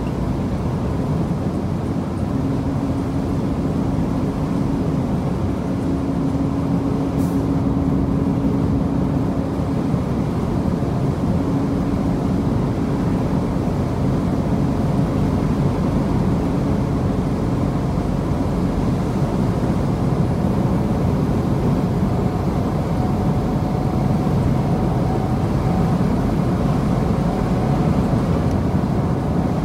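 DAF XF 106 truck on the move: its Paccar MX-13 diesel engine running steadily with road and wind noise, and a steady low drone.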